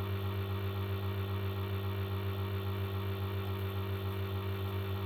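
Steady electrical mains hum with evenly spaced overtones, wavering slightly in level.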